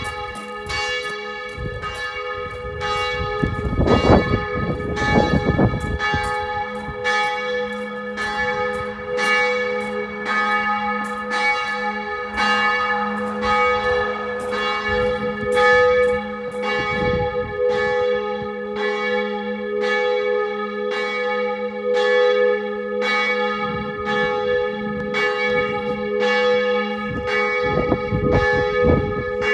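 Church bell tolling steadily, about one stroke a second, its ringing tones carrying on between strokes. Short bouts of low rumble come in a few seconds in and again near the end.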